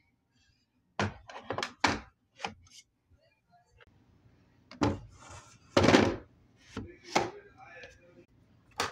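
Makeup palettes and containers being set down in a wooden drawer: a string of irregular knocks and clacks, with one longer, noisier clatter past the middle.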